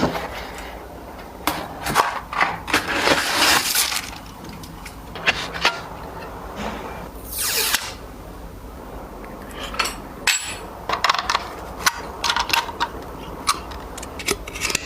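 Computer parts being handled during assembly: scattered clicks, clinks and knocks of hard plastic and metal, with a few short rustling swishes.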